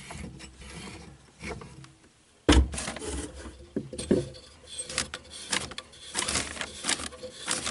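Scattered knocks, clicks and rubbing from hands working the shut-off valves under a sink to turn the water supply back on. A brief quiet gap about two seconds in ends in a sharp knock.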